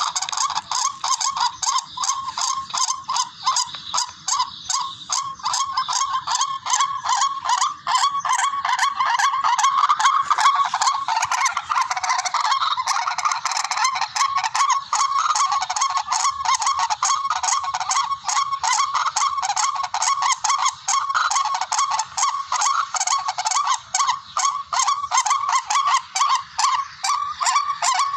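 Recorded tikling (rail) call played as a hunting lure: a rapid, unbroken series of calls repeating without pause.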